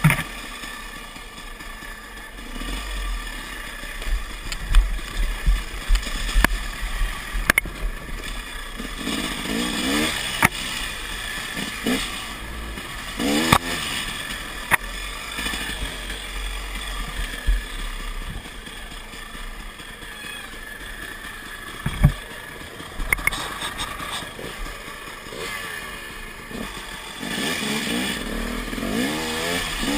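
KTM dirt bike engine running under load on a rough trail, revving up in rising sweeps a few times, notably near the middle and toward the end. Wind rumbles on the microphone throughout, and sharp knocks and rattles come from the bike hitting bumps.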